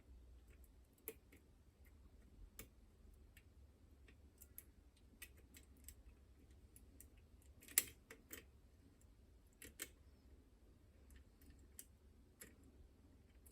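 Faint, irregular clicks and ticks of a pick working the levers inside a Chubb Detector lever lock, with a sharper click about eight seconds in and another near ten.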